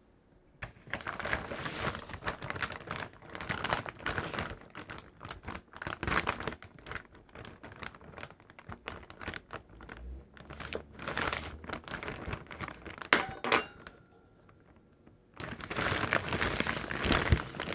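Clear plastic bag of chicken nuggets crinkling as a hand grips and works at it, in long rustling spells. A few sharp clicks come about two-thirds through, then a short pause and a final spell of crinkling near the end.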